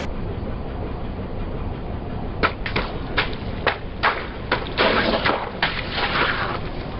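A car tyre rolling over and crushing a brittle object: a run of sharp cracks and crunches, starting a couple of seconds in and ending shortly before the close, over the car's low engine rumble.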